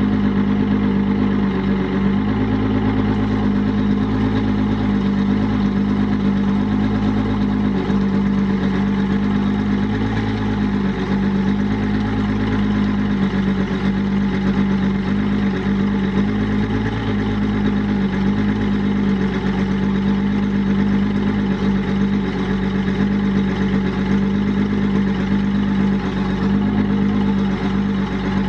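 Evinrude E-TEC 250 V6 two-stroke outboard idling steadily on a cold start, after sitting 3 to 4 months with no fuel stabilizer.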